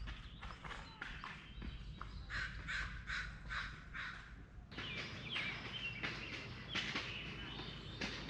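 Birds calling: a quick run of about five calls a little over two seconds in, then higher chirping calls in the second half, over scattered footstep-like clicks.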